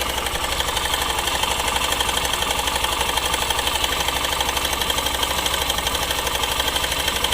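Hero Super Splendor BS6's 125 cc single-cylinder four-stroke engine idling with a steady, fast rattle like a timing chain. The mechanic takes it for a loose timing chain or a tensioner that isn't working.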